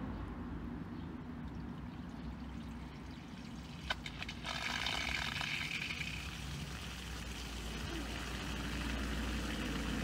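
A garden hose being turned on at an outdoor spigot: a sharp click about four seconds in, then water starts rushing through the tap and hose, loudest at first and then settling. A low steady hum runs underneath.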